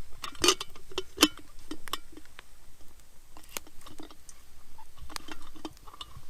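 Small campfire of freshly lit wood crackling, with irregular sharp pops and snaps.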